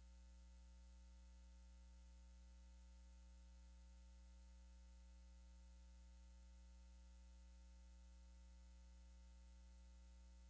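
Near silence with a faint, steady low electrical hum.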